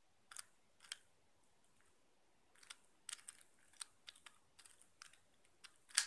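Moyu Weilong GTS speedcube's plastic layers being turned by hand through an algorithm: faint, irregular clicks in small clusters, the sharpest click near the end.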